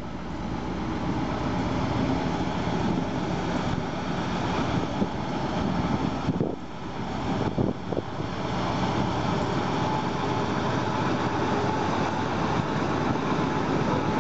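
Small 0-4-0 diesel shunting locomotive's engine running steadily as it draws a coach past at low speed, growing louder over the first couple of seconds as it closes in.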